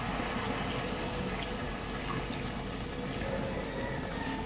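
Sprite (lemon-lime soda) poured in a steady stream from a plastic bottle into a pot of chicken and soy sauce, splashing into the liquid.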